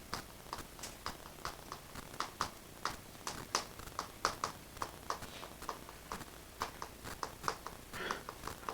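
Irregular light tapping and clicking, about three or four sharp taps a second, with a brief soft rustle near the end.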